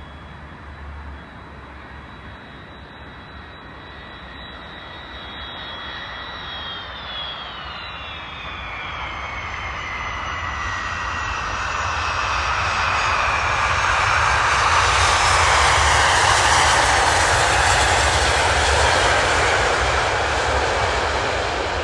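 A Boeing 747SP's four Pratt & Whitney JT9D turbofans passing on landing. A high engine whine holds steady, then drops in pitch about seven seconds in as the jet goes by, and the engine roar builds to its loudest a few seconds before the end and eases slightly.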